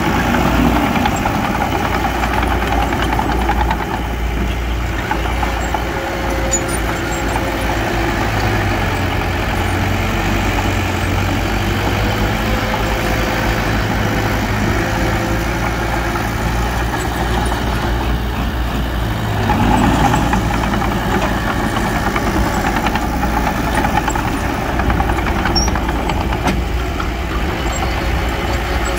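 Diesel engine of earthmoving machinery running steadily, briefly louder about twenty seconds in.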